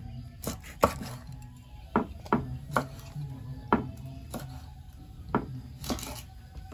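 Knife chopping on a cutting board in uneven strokes, about nine in all, the last one longer and scraping.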